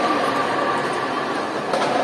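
Steady, even din of a crowd and moving performers in a large indoor sports hall, with no clear music or speech standing out.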